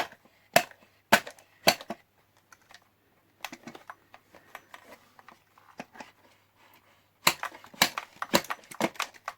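Sharp clicks and knocks of a tool working against a Roberts R717 radio's case while a stuck part is pushed and pried to free it: four knocks in the first two seconds, a few faint ticks, then a quick run of clicks near the end.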